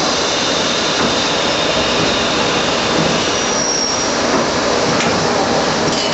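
Traub A25 automatic lathe running on a valve-guide job, a loud, steady machining din with a faint hum, and a brief high whistle a little before the middle.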